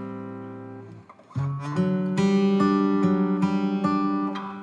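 Background music of acoustic guitar: a held chord fades away, a short pause about a second in, then a new phrase of strummed and plucked chords.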